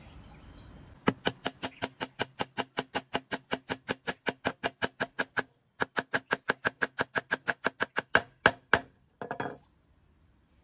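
A rapid, even train of sharp ticks or knocks, about seven a second, each with a slight ring. It breaks off briefly around the middle, starts again, then spaces out and stops, with a short rattle near the end.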